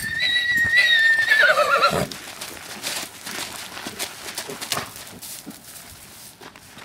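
APHA Paint yearling gelding whinnying once, a loud high call of about two seconds that holds its pitch, then wavers and drops before cutting off. Hoofbeats on loose dirt follow as the horse moves around the pen.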